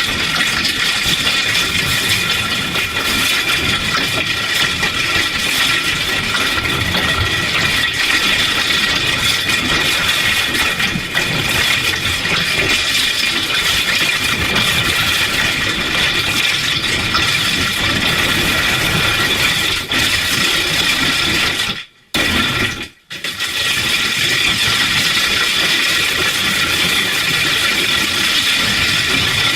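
Heavily distorted, effects-processed cartoon audio: a dense, loud wall of noise with steady high ringing tones and no recognisable words. It cuts out twice for an instant about three-quarters of the way through.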